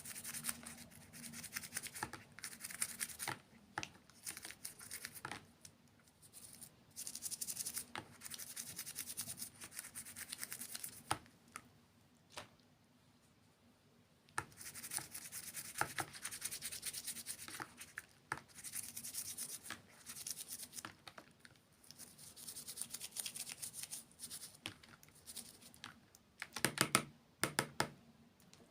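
Close-miked eating sounds: bursts of crunchy, crackly chewing with sharp clicks between, coming in repeated bouts a second or two long with short pauses.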